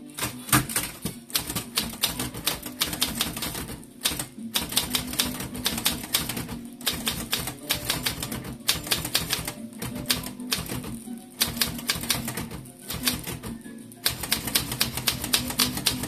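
Olympia manual typewriter being typed on: quick runs of key strikes with a few short pauses, over background music.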